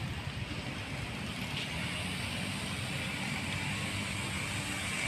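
Steady hum of a car on the move: engine and tyre noise on a paved road.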